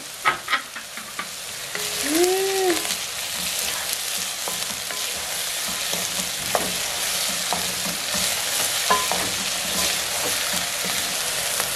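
Onions frying in hot cooking oil in a pot, sizzling steadily, louder from about two seconds in. A few sharp knocks sound in the first second, and faint ticks later.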